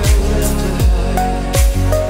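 Music with a deep kick drum that drops in pitch on each beat, about one every three-quarters of a second, under held musical tones.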